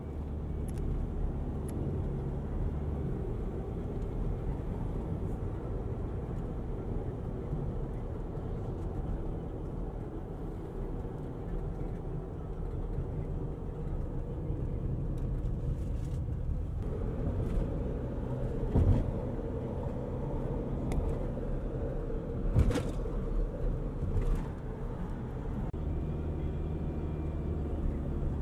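Car's engine and tyre noise running steadily, heard from inside the cabin while it drives along a highway. A couple of sharp knocks stand out in the second half.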